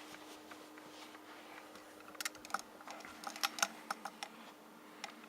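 Irregular sharp light clicks and taps, about a dozen, starting about two seconds in, over a faint steady hum.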